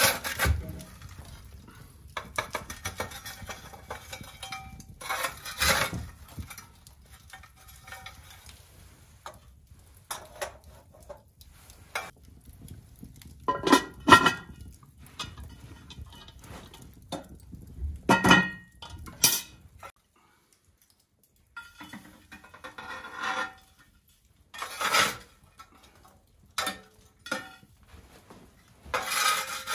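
Cast iron Dutch oven and lid clanking, with a metal fire shovel scraping across the hearth and tipping hot coals onto the pot. The sound comes as scattered separate knocks and scrapes, the loudest about fourteen and eighteen seconds in.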